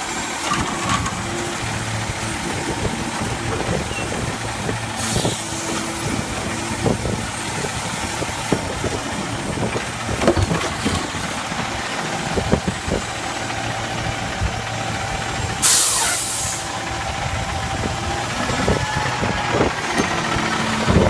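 Automated side-loader garbage truck running, its diesel engine hum steady under scattered knocks and rattles as the hydraulic arm lifts and empties a wheeled cart. A loud hiss of air lasts about a second around two-thirds of the way through.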